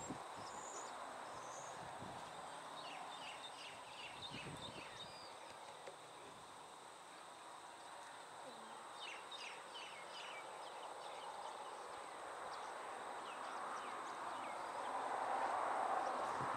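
Quiet rural outdoor ambience: small birds chirping in short quick series, over a steady background hiss that swells into a louder rushing noise near the end.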